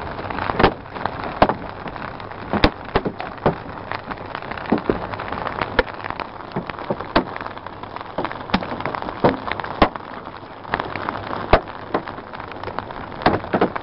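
Heavy rain and hail hitting a car, heard from inside the cabin: a steady hiss of rain with frequent sharp, irregular knocks of hailstones striking the body and glass.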